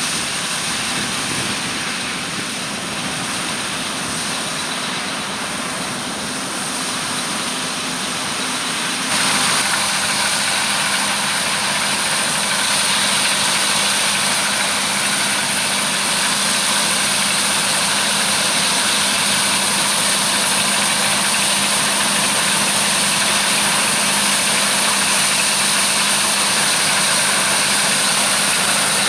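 Large diesel farm machinery running steadily, a constant engine hum with a broad rushing hiss. About nine seconds in it jumps suddenly louder and brighter, and stays at that level.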